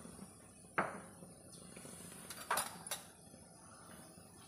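Kitchen utensils being handled on the stove: one sharp knock with a short ring about a second in, then two lighter clicks about half a second apart a little after the middle.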